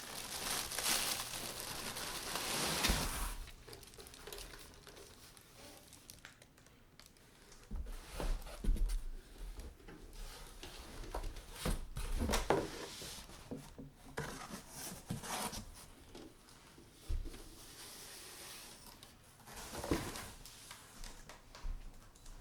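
Packaging being handled: crinkling and rustling, with scattered knocks and bumps as the contents are moved about. A longer stretch of rustling comes first, then shorter separate rustles.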